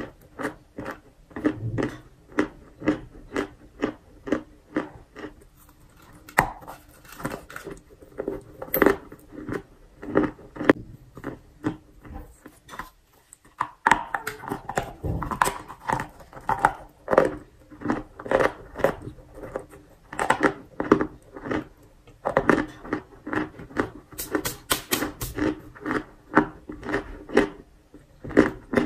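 Close-up crunchy chewing of a white chalk chunk: crisp crunches come about three a second. A short pause falls about two-thirds of the way through, before the chewing resumes, denser.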